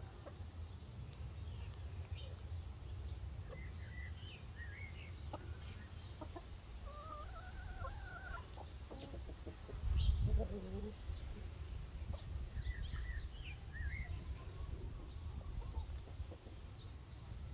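Chickens clucking softly and intermittently, with a longer pitched call about seven seconds in, over a low steady rumble. A brief louder low rumble comes about ten seconds in.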